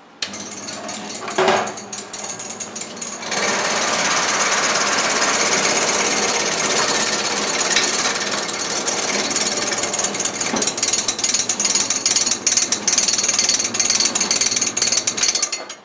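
ORIMAS BC-02 scallion cutting machine running and slicing stalks into rings: a loud, dense, rapid chatter of the cutting blade, growing louder about three seconds in and cutting off sharply near the end.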